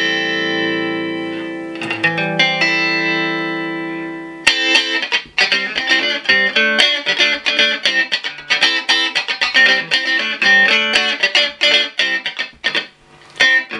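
Fender Stratocaster electric guitar on its middle pickup with full treble, played through a Marshall Valvestate 8040 combo amp's clean channel. Two chords ring out, the second about two seconds in, then from about four seconds in a fast, choppy funk rhythm of short chord strums.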